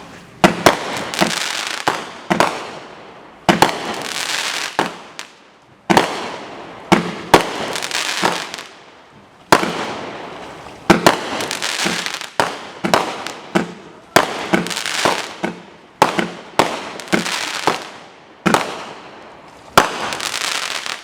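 Consumer firework (MM2130 Nano Tech) firing a rapid series of aerial bursts: sharp bangs about one to two a second, some in quick pairs, each trailing off in crackle. It starts about half a second in.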